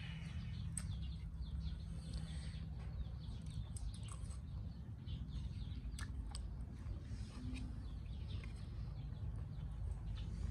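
Faint bird chirps over a steady low background hum, with a few small clicks.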